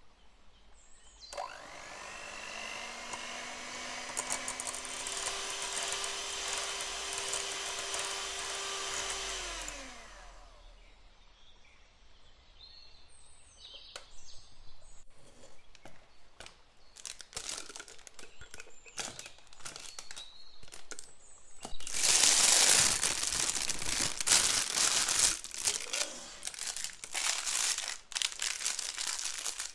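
Electric hand mixer whipping a thick cream for about eight seconds, its pitch rising and then stepping up as the speed is raised, before it stops. Then scraping and clicking, and a loud rustle and crinkle of a plastic piping bag being filled and squeezed.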